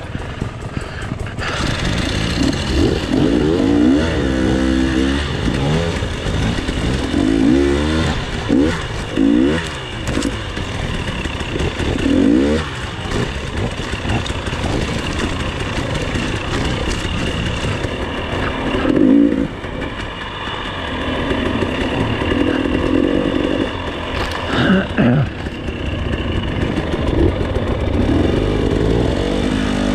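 Off-road dirt bike engine on a slow, rocky trail ride, repeatedly revving up and dropping back as the throttle is worked over the obstacles.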